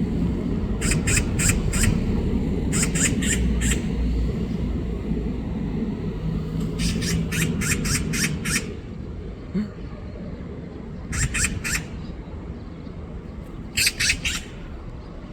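Magpie giving its harsh, rattling chatter in five bursts of three to seven quick notes each, the mobbing call it uses when harassing a cat. A low rumble sits under the first half.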